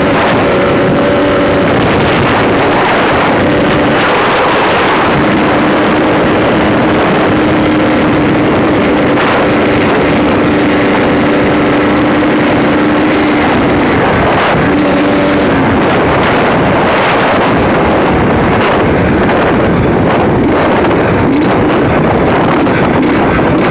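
Suzuki RM125 single-cylinder two-stroke engine running hard as the bike rides along, its pitch holding for a few seconds at a time and then shifting, with loud wind noise on the microphone.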